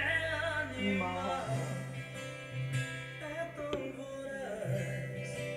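Music with a singing voice playing from a JVC stereo system through its loudspeakers.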